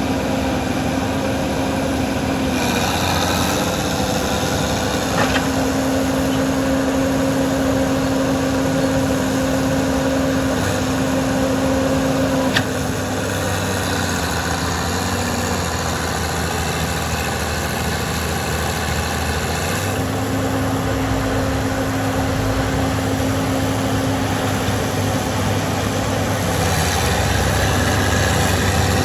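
Bulldozer diesel engine running steadily while pulling a log, its note shifting a few times as the load changes. Two brief sharp clicks come about five and twelve seconds in.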